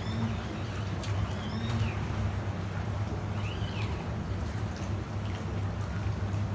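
Boat engine running slowly with a steady low hum, with three short bird chirps over it in the first few seconds.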